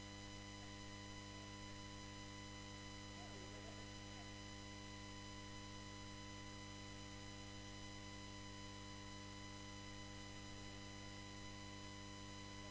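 Steady electrical mains hum and buzz on the audio line, with a faint distant voice briefly about three seconds in.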